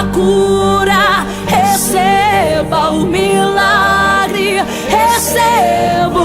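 Gospel song: a woman singing held notes with vibrato over instrumental accompaniment with a steady low sustained tone.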